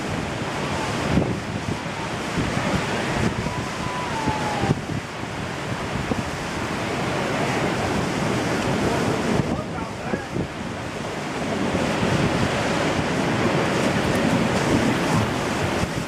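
Ocean surf breaking and washing on a beach, with wind buffeting the microphone.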